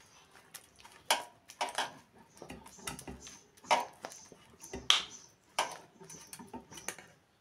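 Metal spoon scraping and knocking against a metal kadhai while stirring sugar syrup into roasted besan, in irregular clinks and scrapes.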